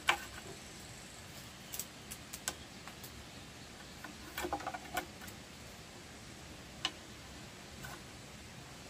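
Scattered light clicks and taps as a thin strip and a pencil are handled against a wooden plank, with a short cluster of taps about halfway through, over a steady faint hiss.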